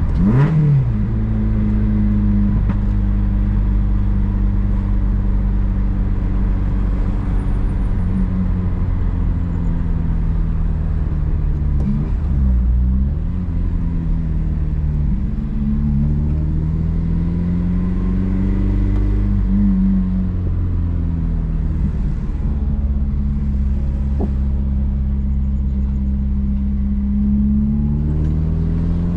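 Honda Civic Si engine running under way, its note rising and falling with throttle and gear changes. It revs up sharply at the start and dips briefly about halfway through, as in a shift.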